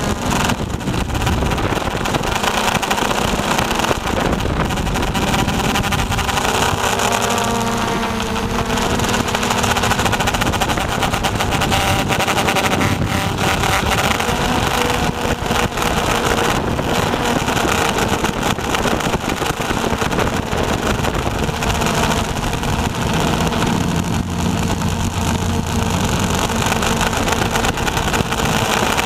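RC Logger NovaX 350 quadcopter's electric motors and propellers running in flight, heard loud and close from a camera mounted on the aircraft. The steady whine holds several tones that shift in pitch now and then as the throttle changes while it manoeuvres.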